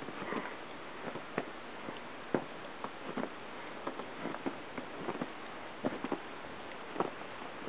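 Irregular soft crunches of steps in fresh snow, about one or two a second, over a steady hiss.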